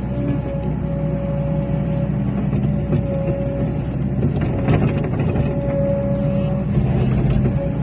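Cat 365C excavator's diesel engine running steadily while it works, with a steady high tone over the engine hum that breaks off briefly a few times, and a few light knocks.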